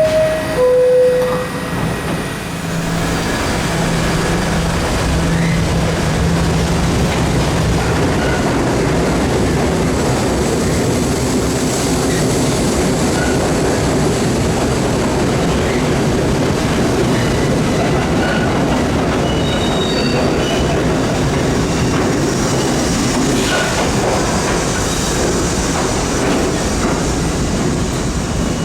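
R68 subway train running on the track, with a steady rumble of wheels and running gear. It opens with a short two-note falling chime.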